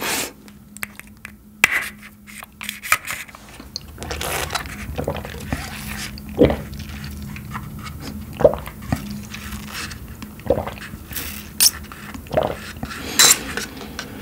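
A person sucking banana milk up a straw from a small plastic bottle, close to the microphone, with a gulp about every two seconds as it is swallowed. Scattered clicks in the first few seconds.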